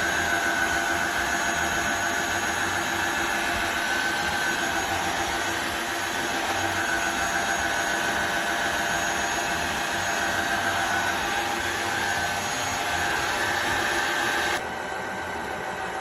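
Tineco iFloor 5 Steam wet-dry floor cleaner running: a steady motor whine over hiss. Near the end the sound drops a little and the highest hiss cuts off suddenly.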